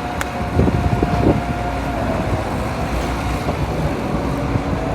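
Heavy machinery engine running steadily, with a couple of short thuds about a second in.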